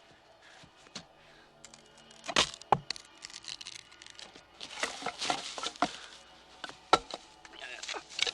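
A run of sharp cracks and knocks with gritty scraping and crunching between them, the loudest crack about seven seconds in.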